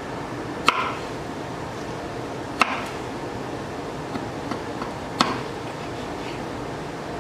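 Knife striking a cutting board: three sharp chops spaced about two seconds apart, each with a brief ring, and a few lighter taps between them, over a steady background hiss.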